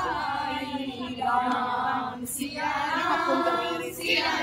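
A group of women singing a devotional bhajan together without accompaniment, in held phrases of about a second with short breaks between them.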